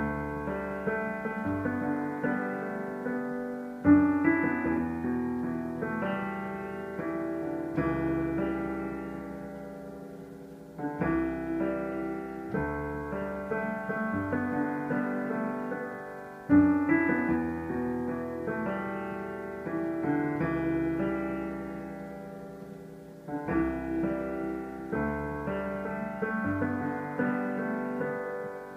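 Roland digital piano played solo: a slow melody over sustained, ringing chords. Strong chords start new phrases about every six seconds, and each fades before the next.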